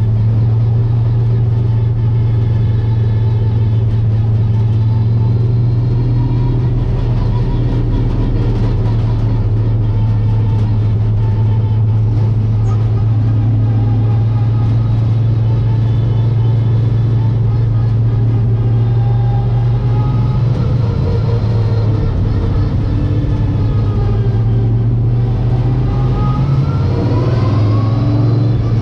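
Late Model stock car's V8 engine running hard at racing speed, heard from inside the cockpit as a loud, steady drone. Near the end the pitch drops and then climbs again as the throttle comes off and goes back on.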